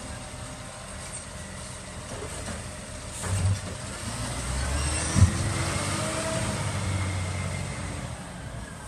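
Side-loader garbage truck running as its hydraulic arm sets an emptied wheelie bin down and retracts, with knocks about three and a half seconds in and a sharp clunk, the loudest sound, about five seconds in. The engine then rises in pitch with a climbing whine as the truck pulls away.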